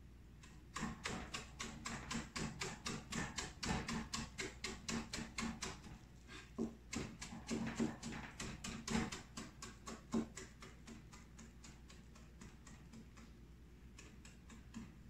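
Knife chopping fresh herbs on a cutting board: fast blade taps, about five a second, starting about a second in and stopping about ten seconds in, with a brief break midway. A few lighter taps near the end.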